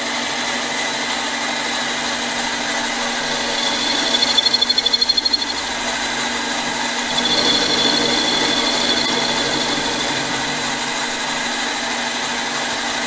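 Mini lathe running steadily with its motor and gear-train hum while the tool faces aluminium stock. About four seconds in a high tone pulses rapidly, about seven a second, for a second and a half, and a steadier high whine from the cut rises again around seven seconds in.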